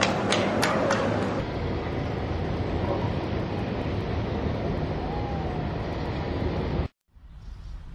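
A few sharp knocks in the first second, then a steady low rumble with hiss that cuts off abruptly about seven seconds in.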